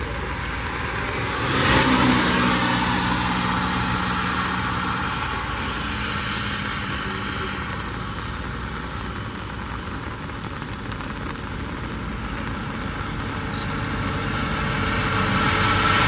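Road traffic passing on a rain-wet road, the tyre hiss swelling as a vehicle goes by about two seconds in and another building near the end.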